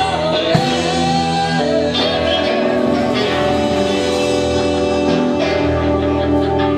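Live blues band with electric guitars, keyboard, bass and drums holding a long sustained chord, the close of a song, with a wavering high note over the first second and a half.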